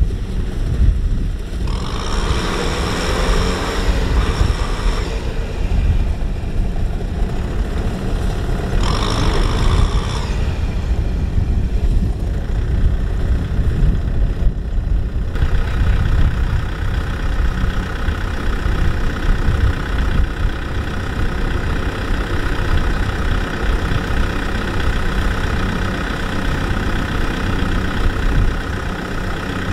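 Kubota M6040SU tractor's diesel engine running under load while the tractor is bogged in deep mud. It surges louder twice in the first half, then settles into a steady run with a higher hum from about halfway through.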